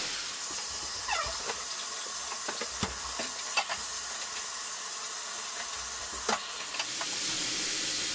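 Steady hiss with a few scattered light clicks and knocks, among kitchen sounds while macaroni and cheese is being made.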